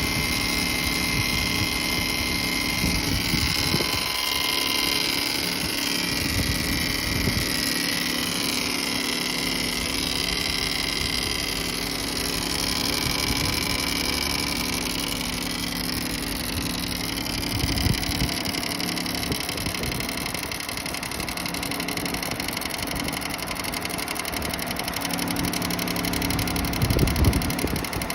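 Subaru Impreza WRX STI (GDB) EJ20 flat-four idling warm, with an abnormal high wavering whine over the steady engine hum. The noise comes on when the engine is hot or the air conditioning first starts, then stops after a while; the owner suspects the fan, the thermostat or the A/C.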